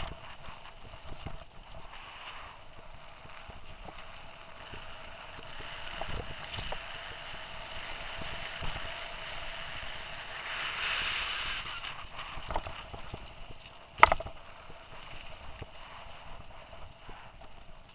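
Mountain bike riding fast along a dirt singletrack: a steady rushing hiss with scattered rattles and clicks, swelling for a couple of seconds before one sharp knock about fourteen seconds in.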